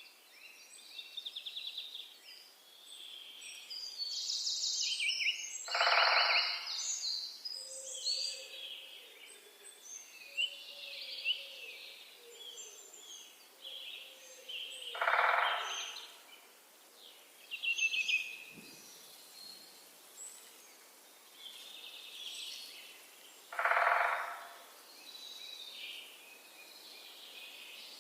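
Outdoor chorus of many birds chirping and trilling together, with a louder, lower call of about a second repeated three times, roughly every nine seconds.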